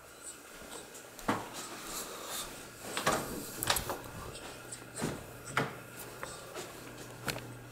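Footsteps of someone walking through empty carpeted rooms with a handheld camera: about six irregular soft knocks and clicks.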